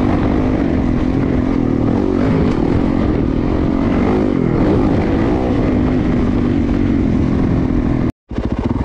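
Yamaha YZ450FX's 450 cc single-cylinder four-stroke engine running steadily as the dirt bike rides along a trail, its pitch wavering slightly up and down with the throttle. The sound cuts out abruptly for a moment near the end.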